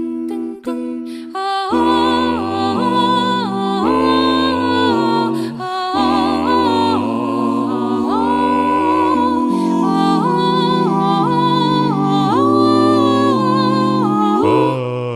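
A cappella vocal group singing in close harmony over a sung bass line, imitating a classic phone or computer sound. Short detached notes for the first second and a half, then held chords that change about every second.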